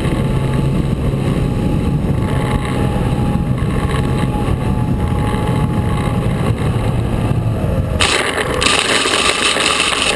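Wind buffeting the microphone of a camera riding a descending model aircraft, with a steady low hum. About eight seconds in the sound changes abruptly to a brighter hiss as the craft touches down in the grass.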